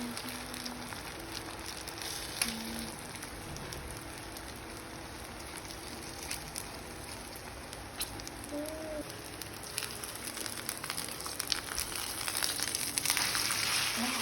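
Hot oil sizzling and crackling in a frying pan, the crackles growing denser and louder over the last few seconds.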